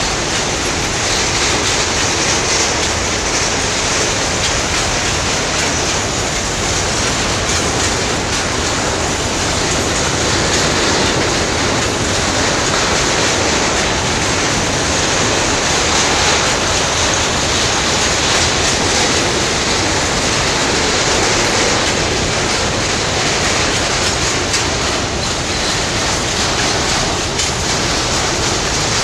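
A long freight train of open-top gondola wagons rolling past close by, making a steady, unbroken noise of steel wheels running on the rails.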